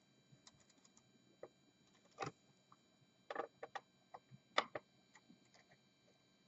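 Scattered light clicks and taps of small screws and a screwdriver being handled on a laptop, at uneven intervals. A small cluster falls about halfway through, and the sharpest click comes a little later.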